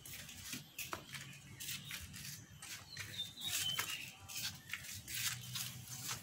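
Faint background of scattered light ticks and rustles, with a few short high chirps from a small bird about three to four seconds in.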